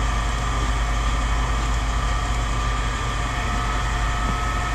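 A steady machine drone: a strong low hum with a few held higher tones, unchanging throughout.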